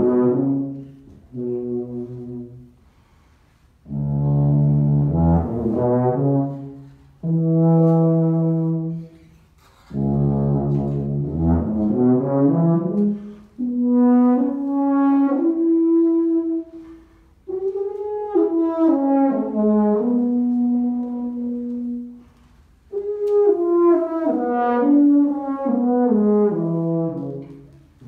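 Miraphone tuba played solo in an unaccompanied improvisation: short phrases of held notes with brief pauses between them, low notes first, then higher notes that slur and bend in pitch.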